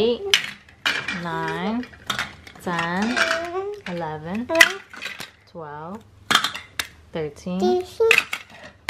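Pieces of plastic toy food clattering and knocking as they are dropped one by one into a plastic basket, the loudest knock about halfway through. Between the knocks a voice counts them aloud in drawn-out words, about one a second.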